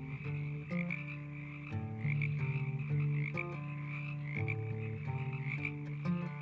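A chorus of frogs croaking: deep drawn-out calls overlapping at several pitches, over a higher, steady pulsing chorus.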